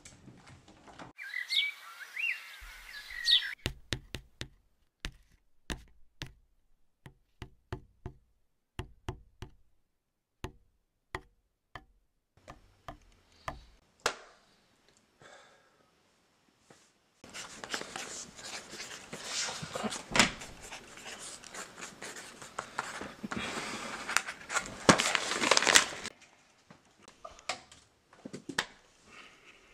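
A pen tapping on paper or a notepad in sharp separate taps, about once or twice a second, then about nine seconds of continuous scratching on paper in the second half. A short chirping sound comes about a second in.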